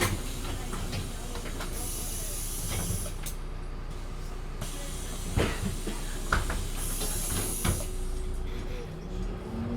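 Inside a MAN Lion's City city bus: two hisses of compressed air from the bus's pneumatic system, each about a second long, over a steady low drone. A few sharp knocks come during the second half, and near the end a rising engine note sets in.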